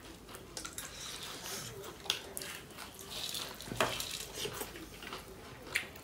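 Fingers mixing rice and curry on a stainless steel plate, with scattered light clicks against the metal; the sharpest click comes a little under four seconds in.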